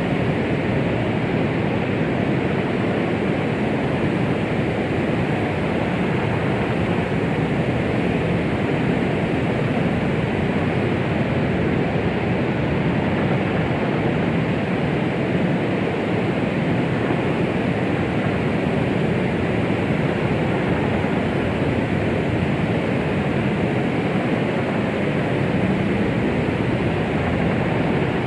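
Steady white-noise track of the womb-sound kind: an unbroken, even hiss weighted toward the low and middle range, with little at the top.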